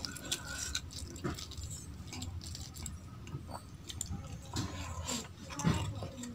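Close-miked hand-eating: fingers squish and mix soft rice and vegetables on a steel plate with small clicks and scrapes, then about four seconds in a mouthful is taken and chewed with wet mouth and smacking sounds.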